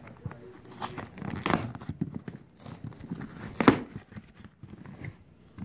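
Cardboard box flap being pried open by hand: scraping and rustling of cardboard, with a sharp snap about three and a half seconds in.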